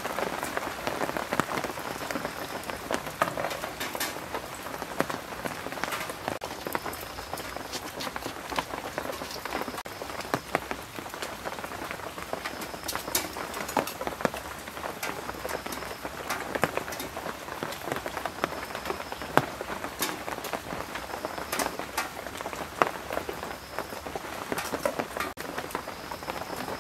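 Steady heavy rain falling, with sharp clicks scattered through it and a faint short high note recurring every few seconds.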